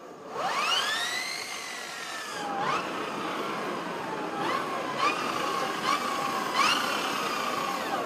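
Electric motorcycle motor whining as the throttle is opened: a smooth rising whine as the wheel spins up, easing off, then several short throttle blips, each a quick rise in pitch that falls away.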